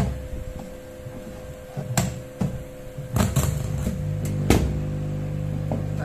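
Clicks and knocks of an old car cassette player's casing being handled and opened, over a steady electrical hum. About four seconds in, a steady low buzz sets in from the unit, which the repairer blames on a fault at the tape belt's sensor.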